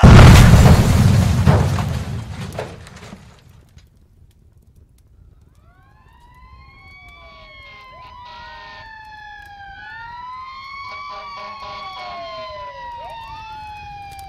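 An explosion goes off suddenly and rumbles away over about three seconds. A few seconds later several emergency-vehicle sirens wail, rising and falling over one another and growing louder.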